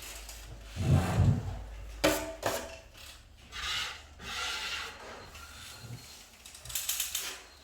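Drywall hand tools scraping and rubbing over a plastered corner, with a dull thump about a second in and a few knocks near two seconds in.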